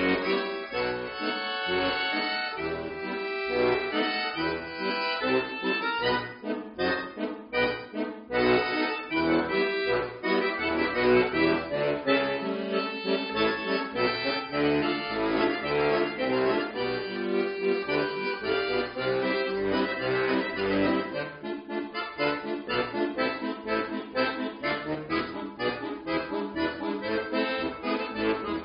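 Chromatic button accordion (bayan) played solo: fast runs of many short notes over bass chords, with a stretch of choppy, detached chords a few seconds in.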